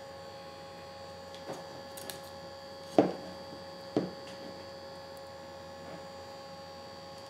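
Knife and tongs cutting grilled chicken on a plastic chopping board: a few sharp knocks as the blade and tongs meet the board, the loudest about three seconds in and another a second later. A steady electrical hum runs underneath.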